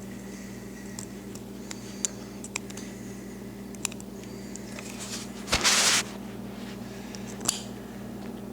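Small metal clicks and taps from pushing a pin out of a Browning BPS shotgun's trigger assembly, with a sharp knock and a half-second scrape about five and a half seconds in, over a steady low hum.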